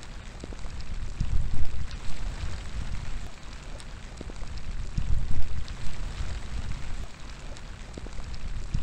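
Steady rain falling, an even hiss dotted with the ticks of single drops. Gusts of wind swell in low and fade away about a second in, around five seconds and again near the end.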